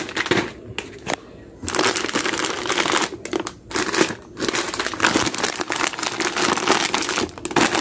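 Plastic snack-chip packets crinkling as they are handled and restacked by hand, in irregular bursts with several brief pauses.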